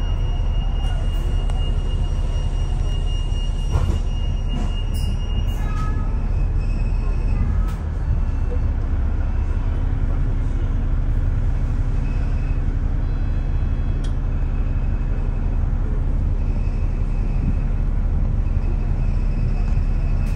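Steady low rumble of a double-decker bus's engine and road noise, heard from on board as it moves slowly in traffic. A faint high whine runs through the first few seconds.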